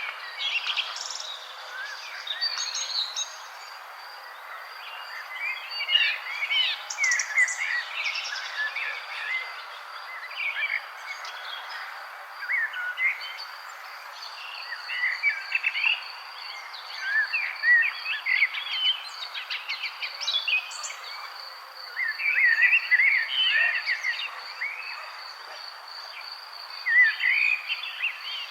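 Several songbirds chirping and twittering in clusters of quick calls, over a steady background hiss. A steady high-pitched insect trill, cricket-like, runs beneath them and grows stronger about a third of the way in.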